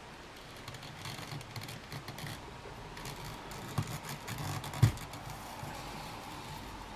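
Hand-stitching leather: a needle and thread being worked and pulled through a small leather piece, with rustling and light scraping handling sounds. There are two sharp knocks about four and five seconds in, and the second is the loudest.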